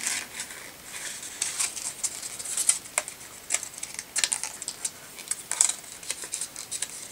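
Folded paper rustling and crinkling in irregular small crackles as fingers work it onto a paper clip and pinch the pleats into shape.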